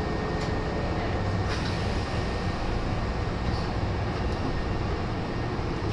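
Nose Electric Railway 1700 series electric train running along the line: a steady rumble of wheels on rail, with a few light clicks.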